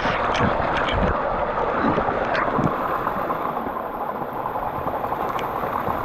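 Mountain stream water rushing steadily, with a few light clicks and knocks in the first two and a half seconds.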